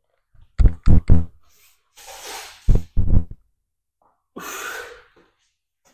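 A man's breathing: two long, breathy exhalations, with short voiced sounds near the start and in the middle.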